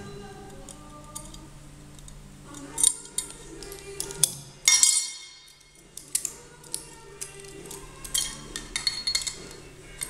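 Small metal clicks and clinks of pliers working bent sheet-metal and contact parts out of a drum switch housing, with one sharper ringing clink about halfway through, over faint background music.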